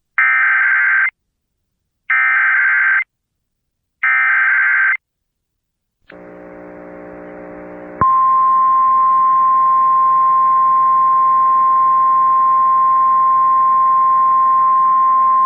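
Emergency Alert System SAME header: three one-second bursts of warbling digital data tones, each about a second apart. After a short gap a low hum comes in, and a couple of seconds later the steady single-pitch 1050 Hz National Weather Service attention tone starts and runs on.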